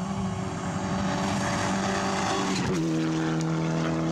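Rally car at full speed on a dirt road, its engine getting louder as it approaches, then dropping sharply in pitch as it passes close by, with the hiss of its tyres on the loose surface.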